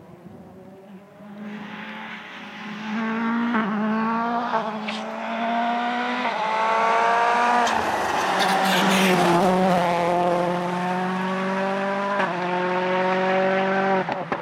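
Ford Fiesta RS WRC rally car's turbocharged 1.6-litre four-cylinder engine at full throttle. It comes in from a distance, the note climbing and dropping back with each quick upshift, is loudest as it passes, then accelerates away through the gears.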